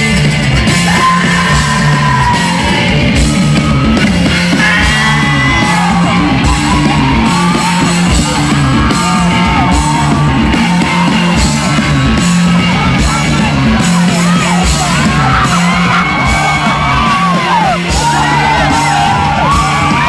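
Loud rock music with yelled vocals, from a band with guitar and drums.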